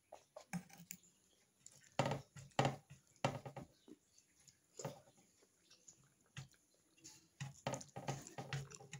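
Close-up chewing of kadhi pakora and rice: a string of irregular short mouth sounds, strongest around two to three seconds in and again near the end.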